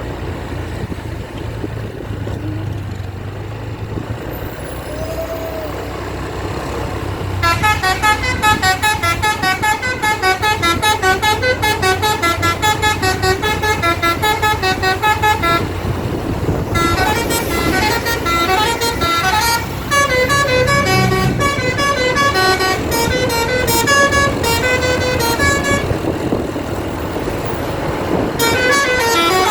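A bus's basuri telolet horn, a multi-note musical air horn, plays a fast tune of short rapid notes. It starts about seven seconds in over the bus engine's steady running, breaks off briefly twice and picks up again near the end.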